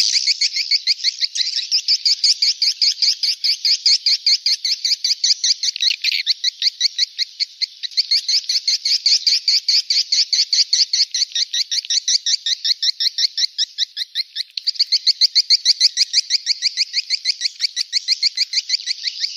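Edible-nest swiftlets twittering: a dense, unbroken run of rapid high chirps, several a second. It is an edited lure call (suara panggil) made to be played back to draw swiftlets into a nest house.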